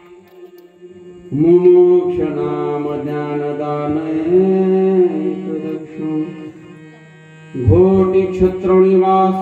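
A male kirtan singer's amplified voice singing long, ornamented devotional notes in two phrases. The first phrase starts about a second in and the second near the end. A faint steady drone continues in the pauses between them.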